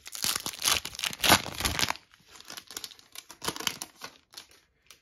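A Panini NBA Flux basketball card pack being torn open by hand: its shiny wrapper tears and crinkles loudly for about two seconds, then scattered crinkles and rustles as it is pulled apart.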